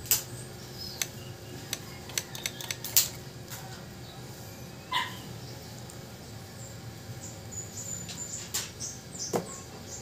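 Small sharp clicks and taps of metal tools on a phone charging-port board and its holder, bunched in the first few seconds and again near the end. About halfway a short animal call stands out, and short high chirps come near the end.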